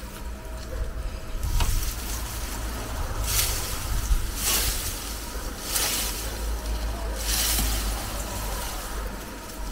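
Dry cane stalks and leaves rustling in four short bursts a little over a second apart as they are pushed and handled, with a sharp click about a second and a half in, over a steady low rumble.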